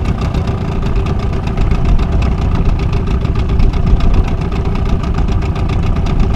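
Small tiller outboard motor running steadily at slow trolling speed.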